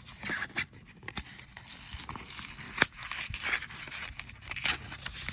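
Yu-Gi-Oh trading cards being handled and slid against one another: light scraping with scattered sharp clicks.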